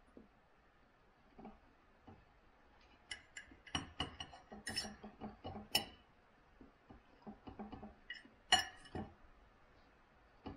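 Metal knife and fork clinking and scraping on a plate while cutting food: a run of sharp clinks a few seconds in, then one louder clink later.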